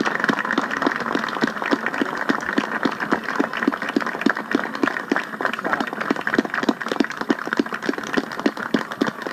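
Audience applause on an old band-festival recording played back through a Sony boombox's speakers: thin and crackly, with claps falling into an even rhythm of about four to five a second.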